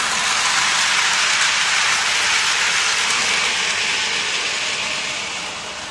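Lionel O-scale toy steam locomotive and freight cars rolling past on metal track: a steady rushing rattle of wheels and motor that swells as the train passes close and fades as it moves away near the end.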